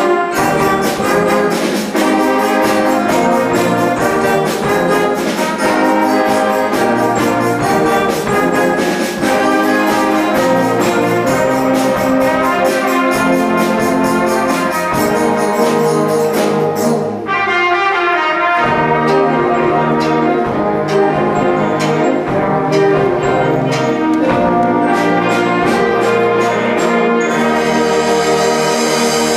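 School concert band playing: full brass and woodwinds over regular drum strikes, the sound thinning out about two-thirds of the way through, then a loud held full chord with deep bass near the end.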